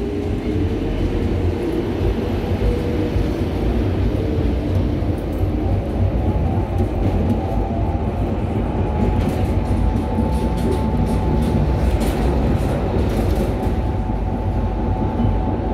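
Inside a V3A-2010-CA tram running along the track: a steady low wheel-on-rail rumble with a motor whine that rises in pitch in the first few seconds and then holds steady. A run of sharp clicks from the wheels and track comes in the second half.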